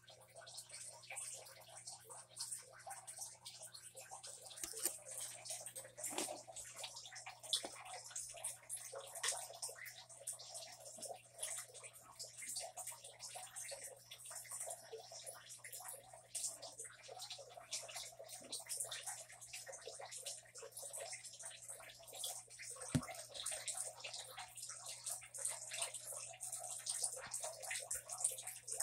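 Gold tegu chewing a fish tail: a dense run of small, irregular clicks and crunches over a low steady hum.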